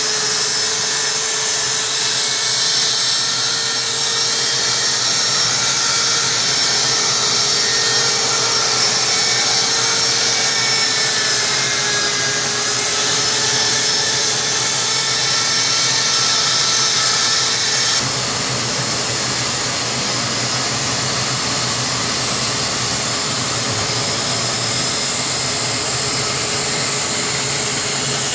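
Handheld electric power tool with a rotary bit running steadily and cutting into a block of ice, with a continuous motor whine. The sound changes abruptly about two-thirds of the way through.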